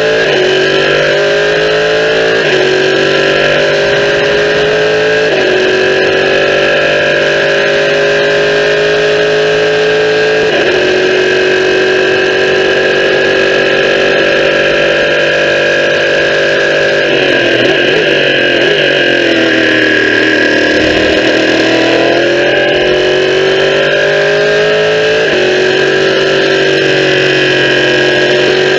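Ligier JS P320 LMP3 prototype's Nissan V8 at full throttle, heard from the cockpit: it climbs through the gears with quick upshifts in the first ten seconds, holds high revs in top gear down a long straight, then brakes hard with a run of downshifts about two-thirds through and pulls away again with another upshift near the end. Wind and tyre noise run under the engine.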